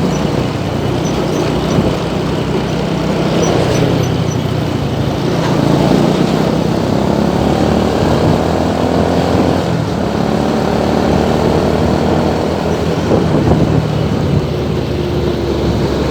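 Road traffic in a jam: many vehicle engines running together with a steady drone, no single sudden event standing out.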